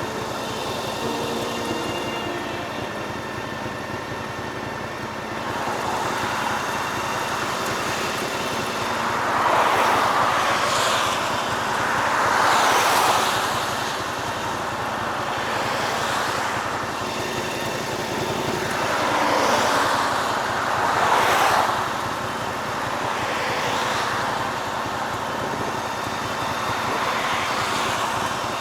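Motorcycle riding along a road, its engine running steadily under a rushing noise that swells and fades several times.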